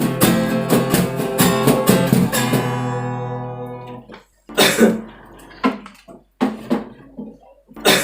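A short music sting of plucked, ringing notes that dies away, then a person coughing four times in short separate bursts about a second apart.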